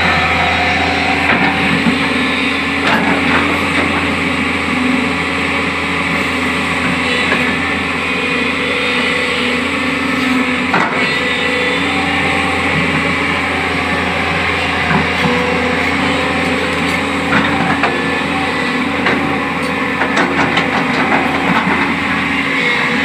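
JCB backhoe loader's diesel engine running steadily under work load, with scattered clanks and knocks from the digging and loading.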